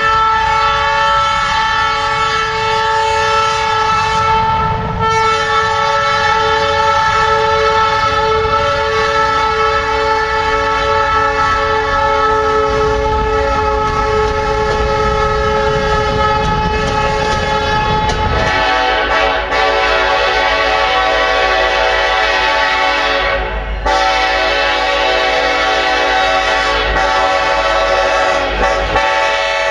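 Diesel locomotive air horns sounding long, nearly unbroken chords over the rumble of the engines and wheels on the rails. The first horn drops slightly in pitch about five seconds in as it passes. About eighteen seconds in, a different horn chord takes over, broken briefly a few seconds later.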